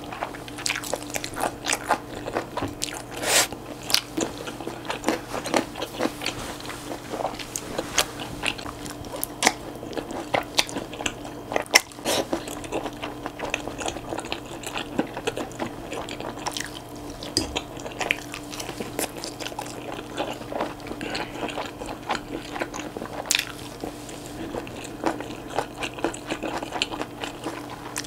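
Close-miked chewing of chewy Chinese glass noodles and beef brisket in spicy sauce, with many short wet mouth clicks and smacks throughout.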